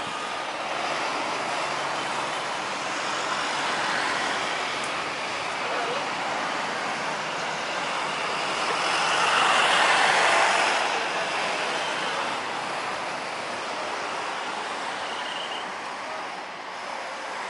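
Jet engines of a Boeing 737-800 running as the airliner rolls out after landing, growing louder to a peak about ten seconds in and then easing off as it turns away.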